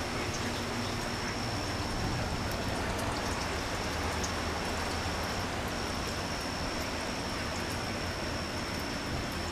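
Steady rain of a strong thunderstorm: an even, unbroken hiss that holds at one level throughout.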